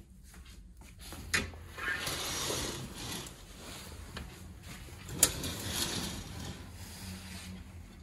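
Curtains being drawn open along their rail: two sharp clacks, each followed by a second or two of sliding, rubbing rattle as the curtain runners travel along the track.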